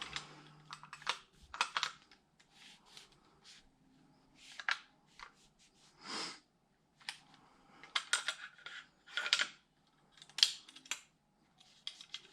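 Irregular scratchy rubbing strokes and small clicks from scrubbing and handling an airsoft rifle's barrel parts, working dirt out of the grooves and inside.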